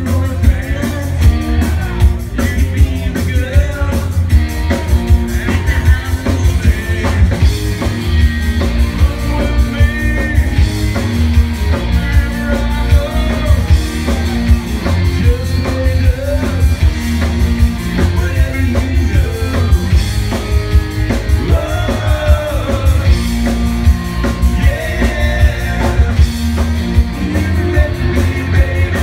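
Live rock band playing a song at full volume: a driving drum kit with guitar, bass and singing.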